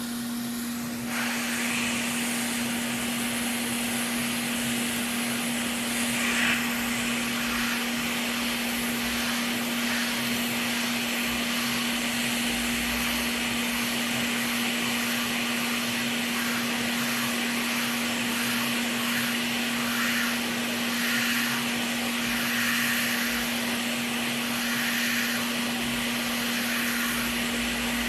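Hot air rework station blowing steadily as it heats the solder on a circuit board, a rushing hiss that switches on about a second in, over a steady low hum.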